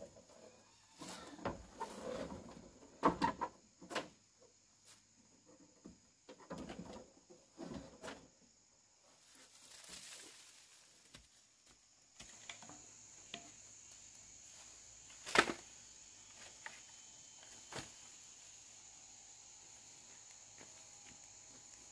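Scattered knocks, clicks and rustles of handling work, with one sharp knock about two-thirds through. A steady high insect chirring comes in about halfway.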